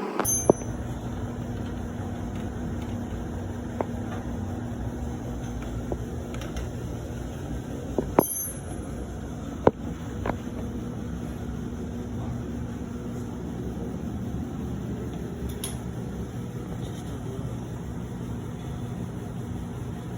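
Steady low mechanical hum with a few sharp clicks and knocks.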